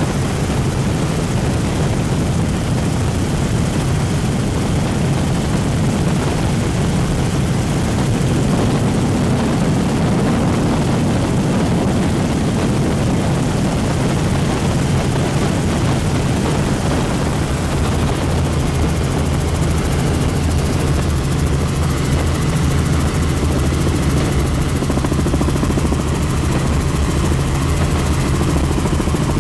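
Helicopter in flight heard from inside the cabin: a steady, loud low drone of rotor and engine with rushing air over it, unchanging throughout.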